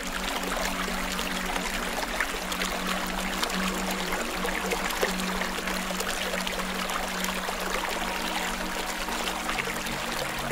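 Steady trickling, running water with fine crackles through it, over faint low sustained tones.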